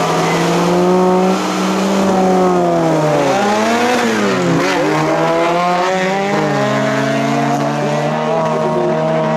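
Engines of two off-road 4x4 race vehicles revving, their pitches dipping and climbing again about halfway through, then running steadily at high revs as the vehicles pull away.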